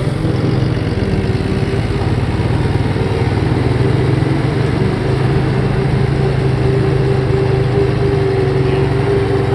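Fendt Vario tractor engine and forage harvester running steadily together under load while chopped grass is loaded into the trailer, a continuous even engine hum without breaks.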